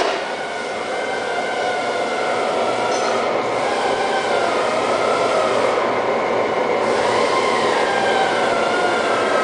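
Cincinnati Gilbert Model J CNC horizontal boring mill running: a steady mechanical whine with several wavering tones over a rumble, slowly getting a little louder.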